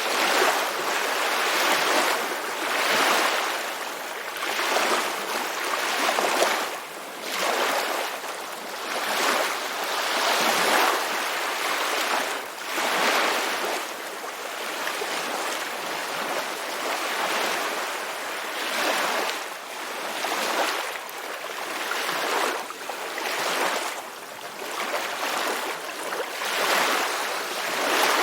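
Sea waves washing, a rushing hiss that swells and fades every second or two, with little bass.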